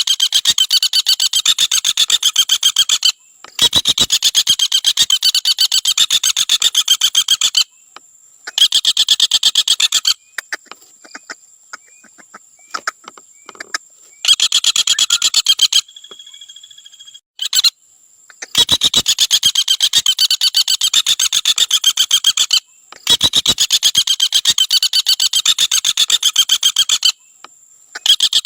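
Common flameback woodpecker (Dinopium javanense) giving its rapid rattling call: runs of quick, evenly spaced high notes, each lasting a few seconds, repeated after short pauses. A faint steady high tone runs underneath.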